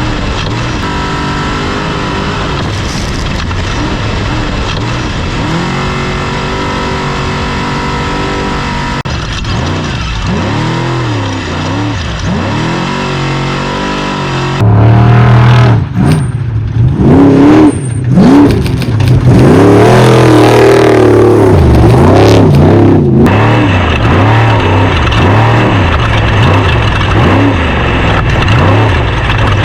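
Off-road race truck engine at racing speed, its pitch climbing and dropping again and again as it revs up and shifts or lifts off. About halfway through it suddenly becomes much louder and stays loud.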